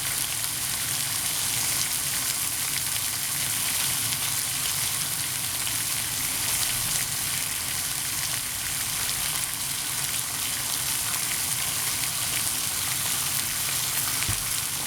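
Bacon rashers sizzling steadily in a frying pan, an even hiss flecked with small crackles and pops.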